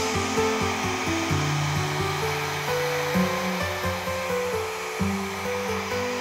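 Handheld hair dryer blowing steadily, drying the fur of a mounted skunk, under background music with held notes and a steady beat.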